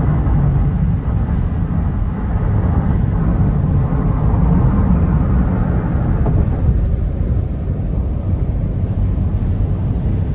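Steady, loud, low noise without speech, even throughout, with no distinct tones or knocks.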